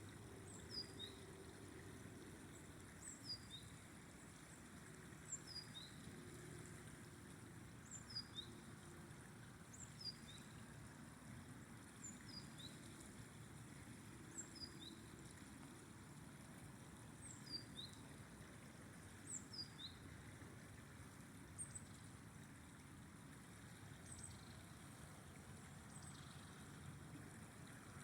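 Faint, steady rush of a flowing river, with a bird repeating a short call of a few high notes that step downward, about every two seconds.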